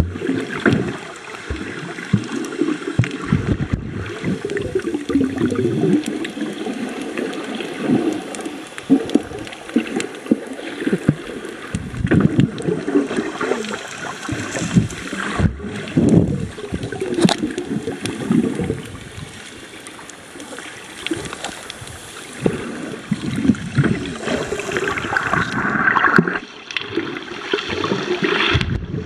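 Underwater sound from a submerged camera: low, irregular gurgling and bubbling of moving water, with two very brief dropouts.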